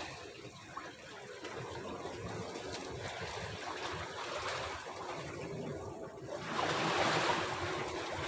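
Seawater lapping and sloshing, with a louder wash of water about six and a half seconds in.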